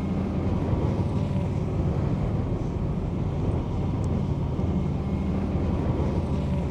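Engine of a «Ветер» all-terrain vehicle running steadily as it drives, a low, even drone.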